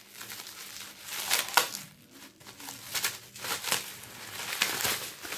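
Plastic bubble wrap and packaging crinkling and rustling in the hands as a small item is unwrapped, in uneven crackles, the sharpest about one and a half seconds in.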